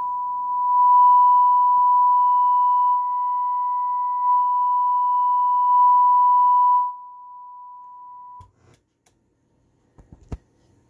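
A steady test tone from an FM signal generator, played through a Marantz 2270 stereo receiver; its loudness steps up and down as the front-panel knobs are turned. About seven seconds in it drops sharply, then cuts off about a second and a half later, and two clicks follow near the end.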